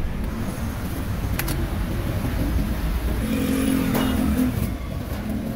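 A motor vehicle's engine running close by: a steady low rumble, with a pitched engine hum for about a second and a half past the middle. Two short sharp clicks stand out, one early and one about four seconds in.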